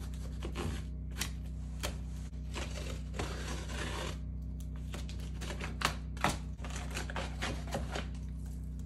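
A small blade slitting packing tape on a cardboard box while the box is handled and turned: scattered clicks and scrapes, with a longer scraping hiss about two and a half seconds in and two sharper knocks about six seconds in. A steady low hum runs underneath.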